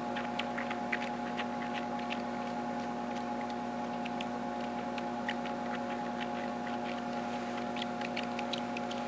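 Newborn kitten suckling on a bottle nipple: small, irregular wet clicks and smacks, a few a second, over a steady background hum.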